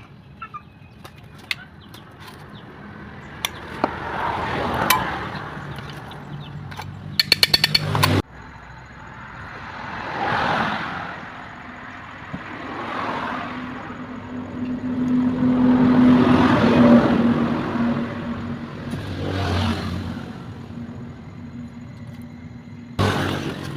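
Motor vehicle engine sound that swells and fades several times, with a steadier running stretch near the middle. A quick run of clicks comes about seven seconds in, and the sound cuts off abruptly just after eight seconds.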